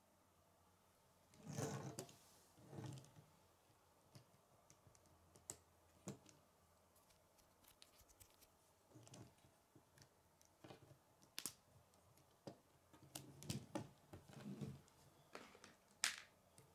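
Faint, scattered clicks and light knocks of a plastic K'nex model being handled and set down on a wooden tabletop, with a few louder handling knocks about two seconds in and again near the end.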